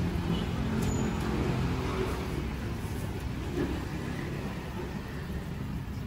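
Steady low rumble of road traffic from the street beside the stall.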